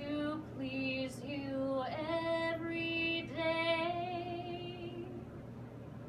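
A woman singing the closing phrase of a folk-style song solo, ending on a long held note that fades out about five seconds in.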